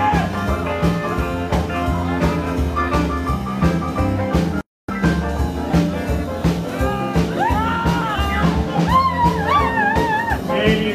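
Live rockabilly band playing an instrumental passage, with guitars, bass and drum kit in a steady swinging rhythm. About seven seconds in a lead line with vibrato takes over, likely the saxophone. The recording drops out completely for a fraction of a second about halfway through.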